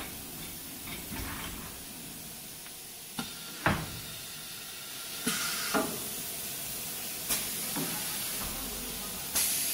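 Automatic-loading CNC router's pneumatic cylinders firing as the panel is positioned: short rushes of released compressed air and clunks, in pairs about half a second apart every couple of seconds, over a steady hiss of machine noise.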